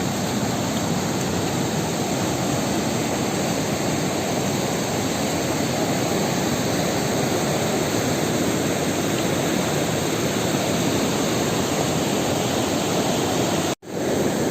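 Rushing river water running high and fast in the rainy season: a steady, even rush, broken by a short dropout near the end.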